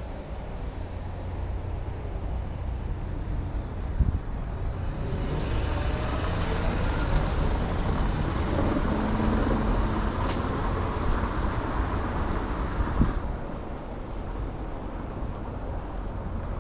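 Street traffic: a motor vehicle passing close by. Its engine and tyre noise swells from about five seconds in and drops away sharply near the end, over a steady low traffic rumble.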